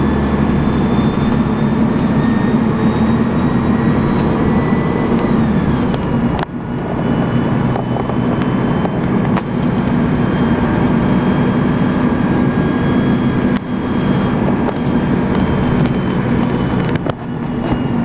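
Interior sound of an Alexander ALX300 single-deck bus under way: the diesel engine runs steadily under the high 'Hoover' whine of its Voith automatic gearbox. The whine glides up and then drops away about five seconds in, and the drive dips briefly twice, at gear changes.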